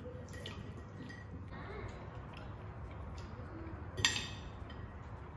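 Light clinks of cutlery and dishes at a meal, with one sharper clink about four seconds in.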